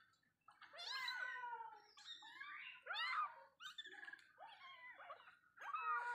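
Young kittens mewing over and over: a string of short, high-pitched cries that rise and fall, several in quick succession.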